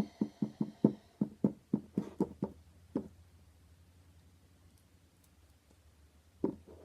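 Sticky slime clicking and snapping as it is worked and pulled off the hands: a quick, even run of about four sharp clicks a second for the first three seconds. Then it drops to a faint low hum, with a couple more clicks near the end.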